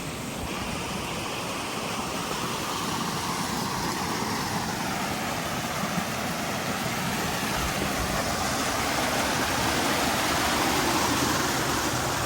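Mountain stream water rushing steadily, growing a little louder near the end.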